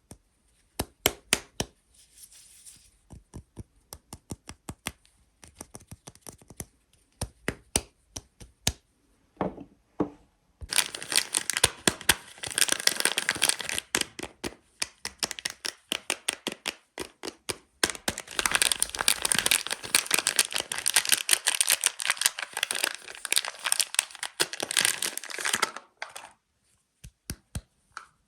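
Soap bar wrapping being opened by hand: scattered crisp crackles and taps at first, then about fifteen seconds of dense crinkling and tearing of the wrapper, with a short pause about halfway through, stopping a couple of seconds before the end.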